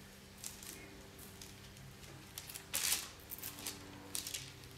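Metal spoon scraping chunky cookie dough onto parchment paper on a baking sheet, with the parchment crinkling: a few short scrapes and rustles, the loudest about three seconds in. A faint steady hum runs underneath.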